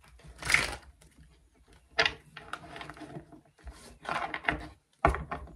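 Tarot cards being handled on a table: several short rustling swishes of cards sliding and shuffling, with a few sharp taps of the deck on the tabletop.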